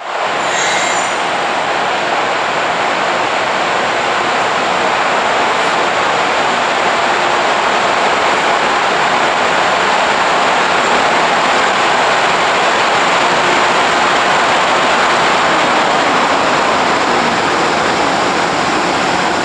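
Freight train hauled by an EH200 electric locomotive rolling by under braking: a loud, steady rushing noise of wheels on rail and brakes.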